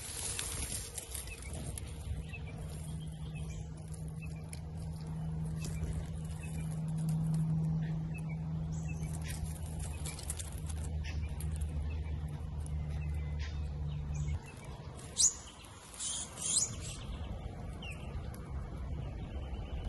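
Birds chirping over a steady low hum that stops suddenly about fourteen seconds in, with two short sharp sounds soon after.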